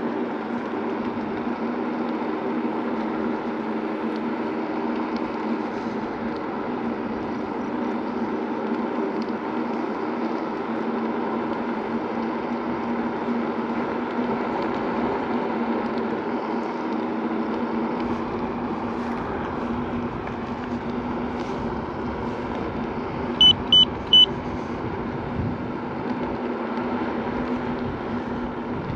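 Segway Ninebot Max G2 electric scooter riding at a steady speed over crushed gravel: a steady motor hum with several tones, over tyre and wind noise. About two-thirds of the way through come three quick high beeps in a row.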